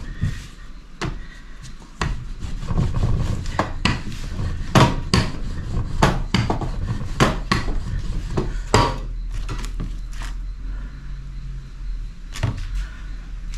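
A rolling pin rolling out dough on a floured tabletop, with frequent sharp knocks and clacks as it hits and shifts on the table. The knocks thin out over the last few seconds, and a low steady hum runs underneath.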